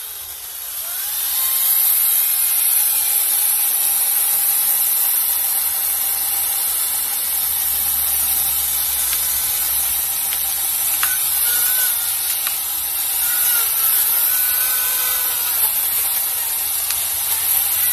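Power saw cutting into the base of a tree trunk. Its motor winds up over the first second or two, then runs on steadily, the pitch shifting up and down as it cuts.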